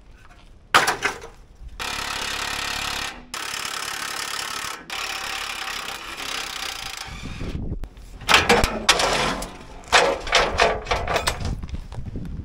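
Impact wrench hammering at the bumper bolts of an old Ford F-350 in three runs of a few seconds each, after a single sharp knock. It is followed by a string of metal clanks as the steel front bumper is worked loose.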